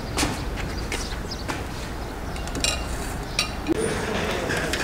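Metal ladle clinking against a cooking pot: a handful of sharp, spaced-out clinks, some with a short metallic ring, over a steady low background rumble.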